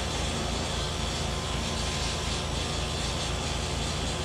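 A machine or engine running steadily, with an even hiss over it.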